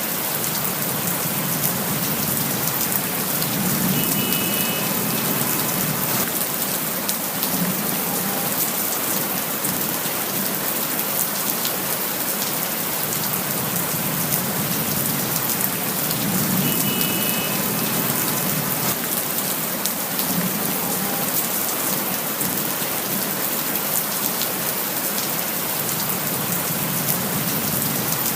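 Steady rain falling, with many single drops striking close by over an even hiss of rainfall.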